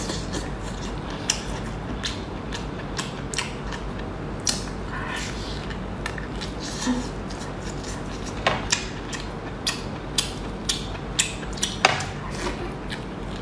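Close-up eating sounds: lips and mouth biting and sucking meat out of a large shellfish claw, heard as scattered wet clicks and smacks over a steady low background noise. The clicks come more often in the second half.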